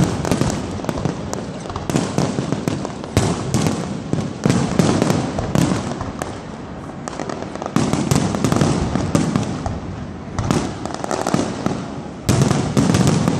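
Aerial firework shells bursting in rapid succession, a dense barrage of bangs and crackling. It eases off briefly about halfway through, then builds to a heavier volley near the end.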